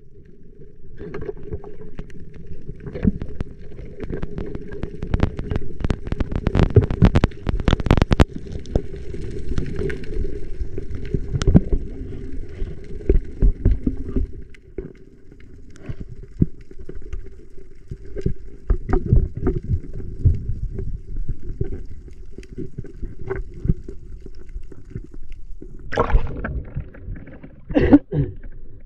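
Muffled water sounds, gurgling and sloshing, with a run of clicks and knocks. The knocks are busiest from about five to eight seconds in and come again near the end.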